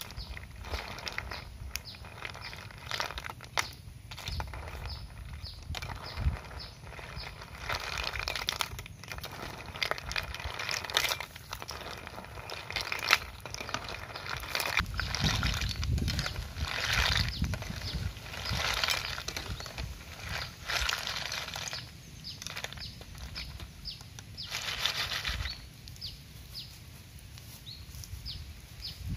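Irregular rustling and crinkling handling noise, with a row of short high chirps repeating in the background.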